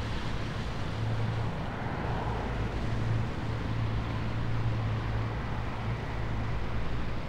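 Steady low engine drone with a constant hum, over a wash of noise.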